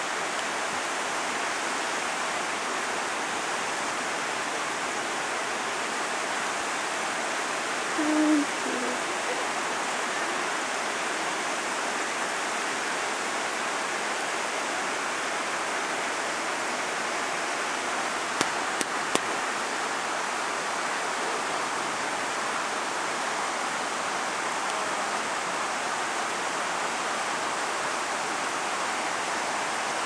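Stream water rushing steadily over rocks and down a small cascade. About eight seconds in, a short low-pitched hoot-like sound rises briefly above the water, and a few faint clicks come later.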